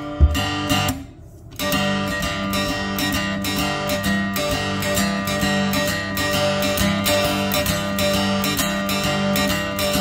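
Three-string ammo can guitar strummed in a steady rhythm, about three strokes a second, after a single strum and a brief lull about a second in.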